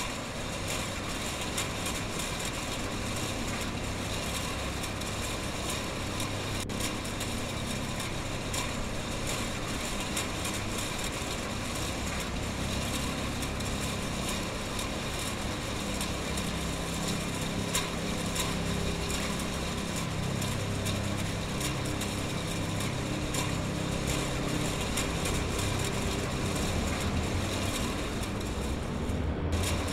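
Packaging-line machinery running with a steady mechanical din. A low hum beneath it changes pitch several times in the second half.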